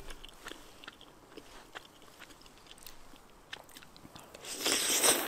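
A person eating spicy noodles: faint chewing and small clicks, then about four and a half seconds in a loud, long slurp of noodles off a fork.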